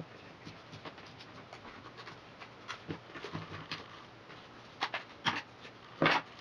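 Vinyl electrical tape being pulled off the roll and wrapped around a plastic bottle: small crackles, scratches and taps, with a few louder short crackles in the last second and a half, the loudest about six seconds in.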